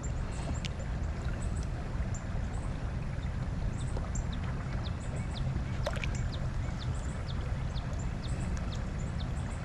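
Steady rush of flowing creek water, with short high falling chirps repeating over it and one sharp click about six seconds in.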